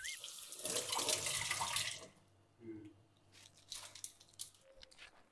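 A rush of running or splashing water for about two seconds, then faint scattered clicks and knocks.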